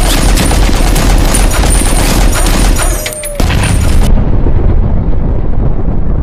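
Loud explosion-like boom with dense crackling. The crackle cuts off abruptly about four seconds in, leaving a deep continuing rumble.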